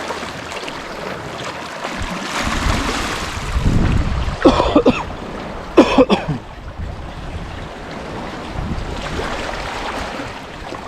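Wind buffeting the microphone over waves washing on a rocky shore, with a heavier gust in the middle. Two short vocal sounds cut in about four and a half and six seconds in, like throat-clearing or grunts.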